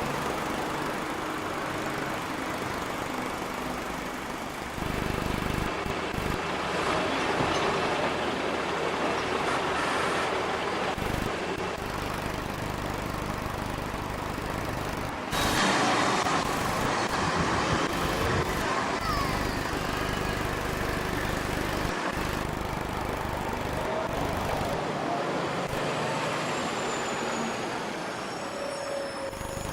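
Heavy diesel vehicle engines running, from the crane and lorries manoeuvring the new bridge section; the noise jumps abruptly in level several times.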